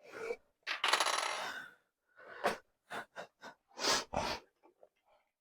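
Attachments and parts of a cordless car vacuum being handled and fitted together: a scraping rustle of about a second, then a run of sharp clicks and knocks as pieces are tried against each other.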